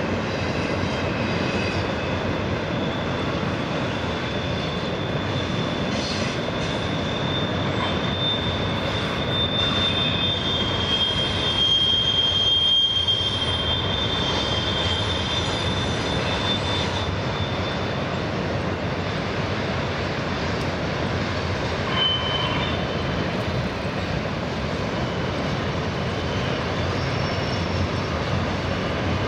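Double-stack intermodal freight cars rolling past steadily on steel rails. A high, drawn-out wheel squeal runs through the first half or so, and a brief squeal comes again later.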